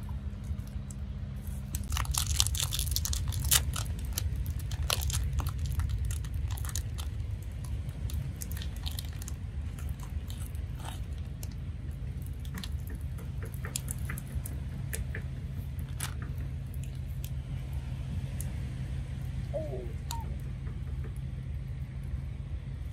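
Crinkling and tearing of a tea bag's wrapper: a dense run of crackles for several seconds, then scattered clicks as the bag is handled. Near the end, water is poured from a kettle into a glass mug.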